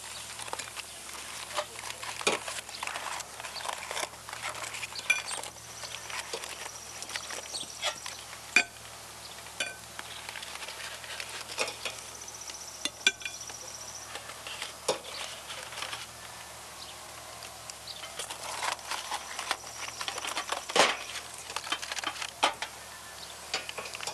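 Metal tongs and serving utensils clinking and tapping against sheet pans and plates: scattered, irregular clicks while grilled pineapple slices and foil-wrapped fruit are moved and plated.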